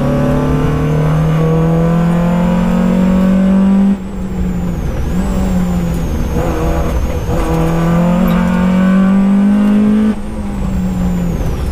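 Peugeot 205 GTi rally car's engine heard from inside the cabin, pulling hard with its pitch climbing steadily, then dropping suddenly about four seconds in, climbing again and dropping once more near the end. Tyre and road rumble runs underneath.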